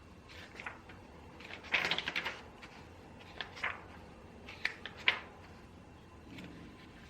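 Computer keyboard typing in short bursts: a quick run of keystrokes about two seconds in, then a few scattered single key clicks.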